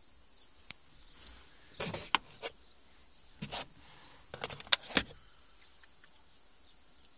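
Plastic clicks and clacks of a Volkswagen Polo's sun visor being handled: a few clacks about two seconds in, more around three and a half seconds, then a quick run of clicks as the vanity mirror cover is flipped open, the loudest about five seconds in.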